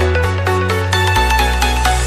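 Background music: electronic music with a quick run of repeating pitched notes over a steady bass line.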